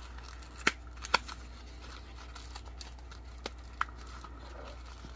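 A small cardboard box being handled and pried open by hand: four sharp clicks and taps of the cardboard, the two loudest in the first second and a half. A faint steady hum lies under them.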